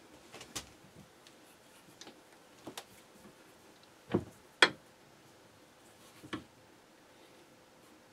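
Bench vise pressing a brass bearing home into an aluminium column: a scattering of short, sharp clicks and knocks. The loudest are a pair a little past the middle.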